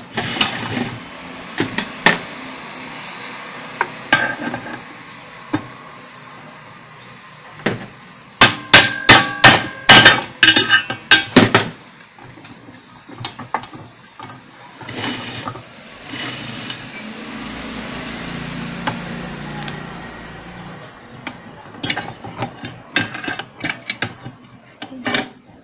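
Hammer blows on the end cover of an orange juicer's motor, knocking it loose from its three retaining tabs. Scattered single knocks, then a fast run of a dozen or so hard blows about a third of the way in, and another run of lighter taps near the end.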